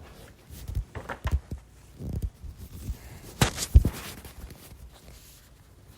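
Several dull thumps and knocks at irregular intervals, a few of them sharper, with no speech.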